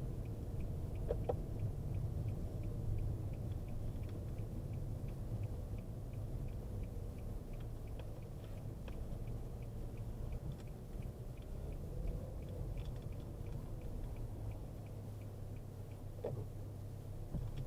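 Steady low road and engine rumble inside the cabin of a Nissan Super Sentra being driven while its occupants listen for an abnormal rattle, with a faint fast ticking of about four a second that fades out around the middle and a few light knocks.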